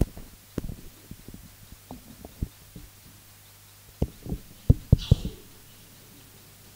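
Handling noise from a lectern microphone being gripped and repositioned on its stand: scattered low thumps and knocks, the loudest a quick cluster of three about five seconds in, over a faint steady low hum.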